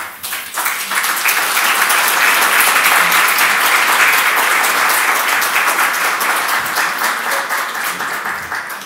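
An audience of seated dinner guests applauding: the clapping swells within the first second, holds steady, and fades out near the end.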